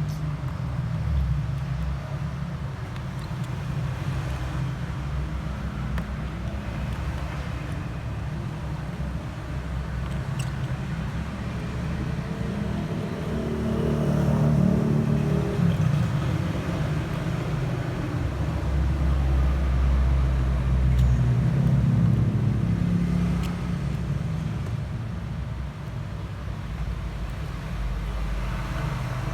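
Low rumbling background noise, steady with two slow swells in loudness, and a few faint clicks.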